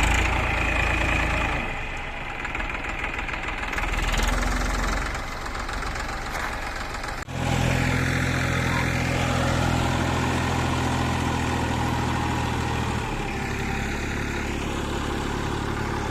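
Tractor engine running steadily, with a low, even drone. It breaks off abruptly about seven seconds in, then carries on at a steady pitch.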